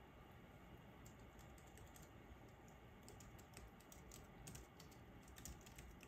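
Faint typing on a computer keyboard: a run of light key clicks, starting about a second in.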